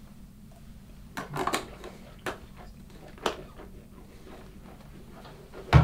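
Handling noises from a plastic mouthwash bottle and its cap: a short cluster of scuffing sounds about a second in, two light clicks, then one heavy thump near the end as the bottle is set down on a wooden desk.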